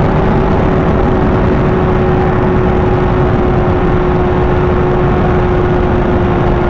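Kawasaki ZX-6R's 636 cc inline-four heard onboard at a steady cruise, its engine note holding almost level and easing very slightly lower, over a steady rushing noise.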